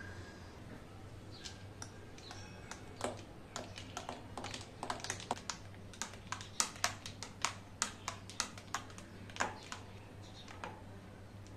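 Metal spoon stirring milk and ice cubes in a drinking glass: quick, irregular clinks of spoon against glass and ice, densest for several seconds in the middle and thinning out near the end.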